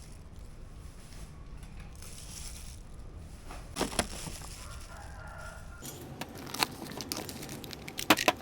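Scattered clicks, knocks and crinkling handling noises over a steady low hum, with a chicken calling briefly in the background about five seconds in.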